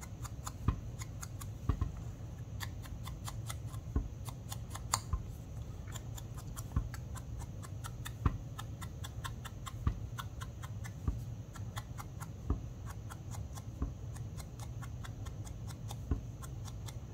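Sponge dauber dabbing ink onto the edges of a paper sentiment strip: light, irregular taps and clicks, several a second, over a steady low hum.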